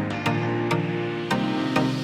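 Background music with a steady beat: held notes over regular percussive hits.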